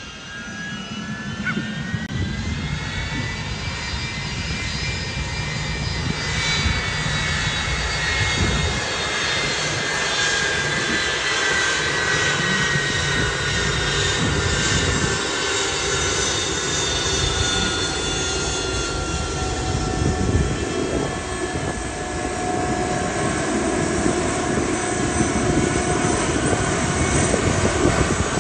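Boeing C-32 (757-200) jet's twin Pratt & Whitney PW2040 turbofans running at taxi power over a steady low rumble. Their whine of several tones rises over the first few seconds, then slowly falls.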